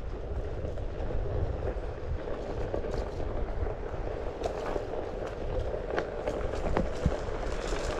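Wheels rolling over a bumpy dirt trail with wind rushing over the microphone: a steady rumble broken by scattered small knocks and rattles.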